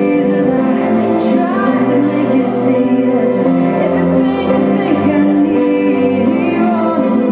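Music with singing, steady and continuous.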